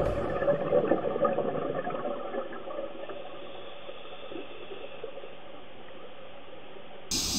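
Background music with long held, droning notes that die away over the first couple of seconds, leaving a faint steady hiss.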